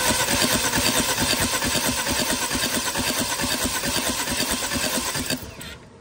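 2013 BMW X3's 2.0 L turbocharged N20 four-cylinder engine being cranked over on the starter with a compression gauge fitted to cylinder 3, giving a fast, even rhythm of compression strokes that stops near the end. This is a compression test, and cylinder 3 reads low, about 82 PSI.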